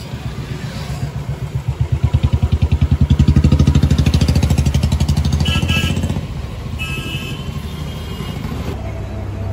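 Motorcycle engine running close by, its fast, even pulsing growing louder to about three seconds in, then fading after about six seconds. A few short high tones sound around five and a half and seven seconds in.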